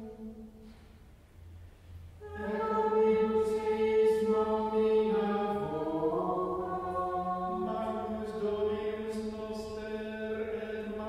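A small schola chanting a Latin psalm verse in Mozarabic plainchant on a psalm tone. After a pause of about two seconds, the voices come in together and hold the reciting note, with a short melodic turn in the middle of the phrase.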